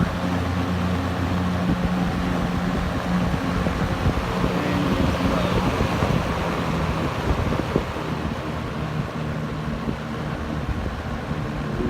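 1970s Eskimo (McGraw Edison) 20-inch box fan with a five-wing plastic blade running on high speed: a steady rush of air over a low motor hum, a little quieter in the last few seconds.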